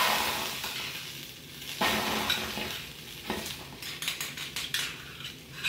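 Tomato paste and caramelized vegetables sizzling in a hot stainless steel pan, with a spoon scraping paste from a small tin and stirring. The sizzle flares at the start and again about two seconds in, with a few light clinks of the spoon later.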